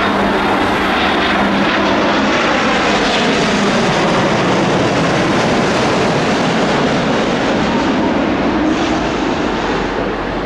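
Boeing 787-9 jet airliner on final approach, its GEnx turbofan engines passing low overhead: a steady jet rush with a whine that falls in pitch as the plane goes by. The sound eases slightly near the end as it moves away.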